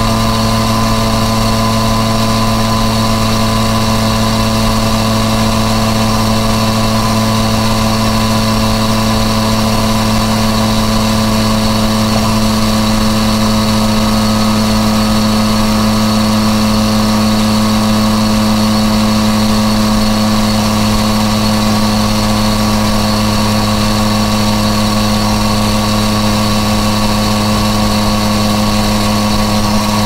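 Yamaha MT-09 Tracer's inline three-cylinder engine running through an Akrapovic exhaust, holding a steady engine speed with no gear changes or revving. Wind noise sits underneath it.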